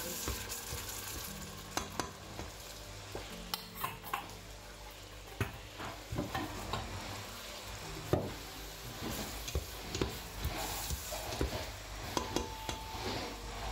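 A plastic spatula stirs split lentils in melted butter in a stainless steel pot, scraping and knocking irregularly against the pot, while the butter sizzles.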